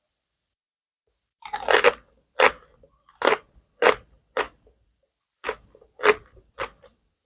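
A person biting into and chewing crunchy food close to the microphone. A loud bite about a second and a half in, then evenly spaced crunchy chews about two a second, with a brief pause midway.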